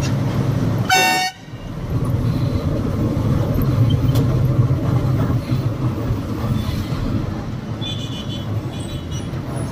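Loaded truck's engine running steadily on the move through town traffic, with one short, loud vehicle horn toot about a second in and a few fainter, short horn beeps near the end.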